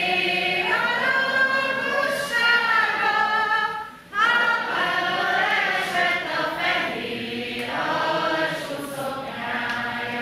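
A woman leading a slow unaccompanied song, with many voices in the hall singing along. The notes are long and held, in phrases, with a short breath break about four seconds in.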